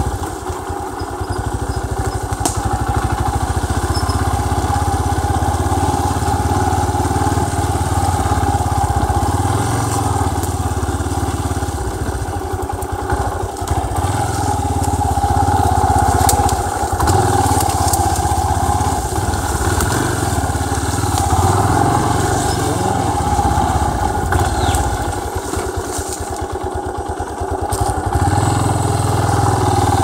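Motorcycle engine running as the bike rides along a dirt trail. Its sound drops and picks up again several times.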